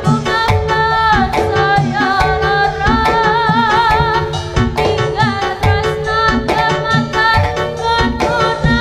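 Live Javanese jaranan campursari music: a high singing voice with wavering vibrato over kendang hand-drum strokes and gamelan percussion.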